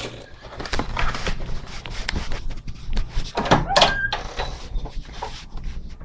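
Hotel room door being handled and opened: clicks and knocks of the latch and handle, with a short high whine near the middle.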